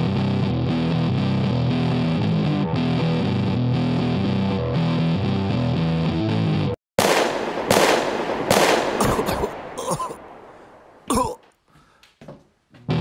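Heavy distorted electric-guitar music that cuts off abruptly about seven seconds in. It is followed by a quick run of four or five loud bangs that die away over about two seconds, then one more sharp bang a couple of seconds later.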